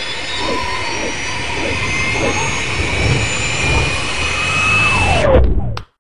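Cartoon sound effects: a loud jet-like rushing noise with a slowly rising whistle and several short swooping tones, then a falling whistle near the end that cuts off suddenly into silence.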